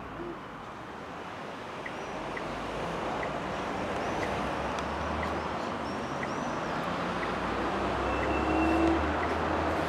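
City street ambience: steady road traffic noise that grows gradually louder, with faint, evenly spaced light clicks about every two-thirds of a second.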